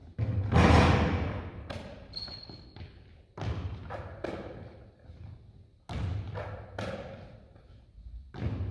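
A basketball repeatedly banking off the backboard and rim and bouncing on the sports-hall floor: a string of thuds and bangs that ring around the hall, the loudest about half a second in. A brief high squeak comes about two seconds in.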